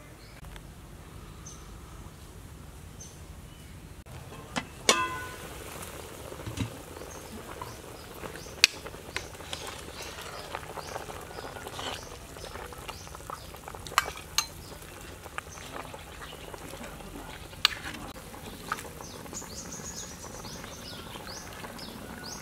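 Metal pot lid lifted off with a ringing clank about five seconds in, then soup boiling in the open pot, with a few sharp clinks as a metal ladle stirs it.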